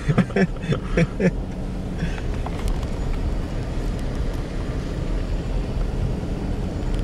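Steady low rumble of a car's engine and tyres, heard from inside the car as it creeps slowly down a steep street.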